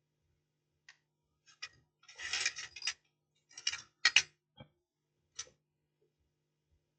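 Clicks and short scrapes of small hand tools and parts being handled on an electronics workbench during a MOSFET replacement on a circuit board. They come in two clusters about two and four seconds in, the loudest near the four-second mark, over a faint steady hum.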